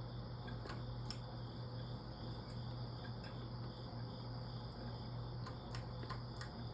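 Evergo Roma Emperor ceiling fan running, its motor giving a steady low hum, with a few scattered light clicks.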